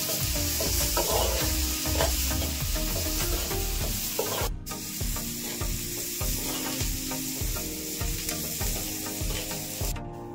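A metal spatula stirs and scrapes sliced onion, then grated coconut, in a black iron pan as they sizzle, dry-roasting for a masala paste. The sizzle breaks off briefly about four and a half seconds in, and soft background music runs underneath.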